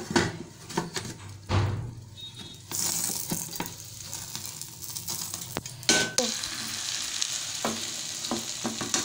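Oil sizzling in a frying pan under a carrot-and-egg omelette, a steady hiss that grows louder about three seconds in, with a few knocks and a sharp clink from a steel plate being handled and brought over the pan.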